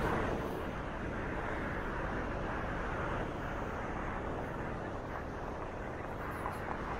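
Steady rumble of road traffic on a city street, vehicles going by without any single sharp event.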